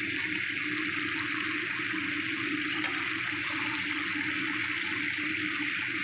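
Eggplant simmering in a thick sauce in a wok: a steady sizzling and bubbling.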